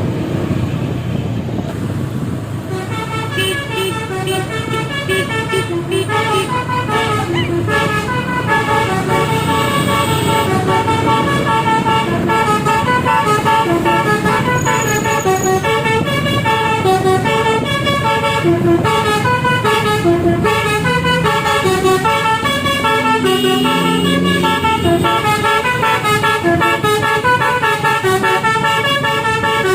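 Bus telolet horn: a set of musical air horns playing a quick melody, note after note, over a running diesel engine. The melody starts about two and a half seconds in and keeps going without a break.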